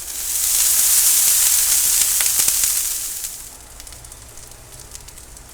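Onions sizzling in oil on a hot Blackstone flat-top griddle: a loud, steady hiss that eases off to a quieter sizzle a little after three seconds in.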